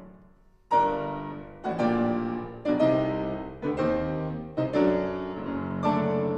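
Grand piano played four hands: after a brief pause, a series of loud chords struck about once a second, each left to ring.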